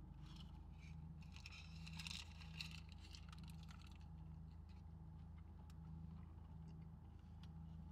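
Car air conditioner running with a steady low hum, while a paper food wrapper crinkles for the first couple of seconds as a soft taco is lifted and bitten into.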